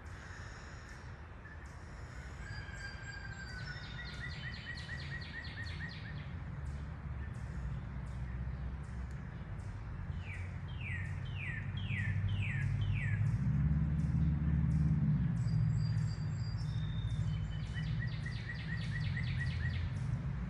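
Woodland songbirds singing and calling, with trills and a run of quick falling notes, over a low rumble that swells about twelve seconds in and eases off again.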